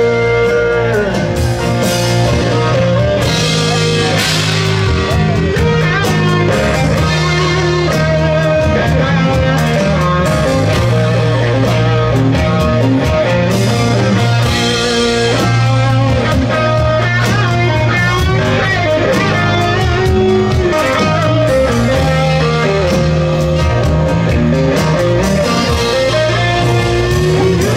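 Live band playing an instrumental break with no singing: guitar carrying the melody over electric bass and a drum kit with cymbals.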